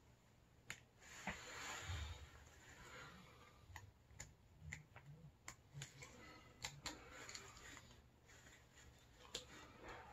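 Thin plastic cheese-stick wrapper crinkling in the fingers as it is picked and pulled open: a scattered string of sharp, irregular crackles with soft rustling between them.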